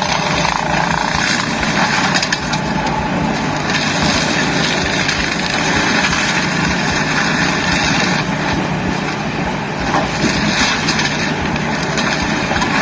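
Heavy machinery engines running steadily at a work site, a constant mechanical drone with no clear changes.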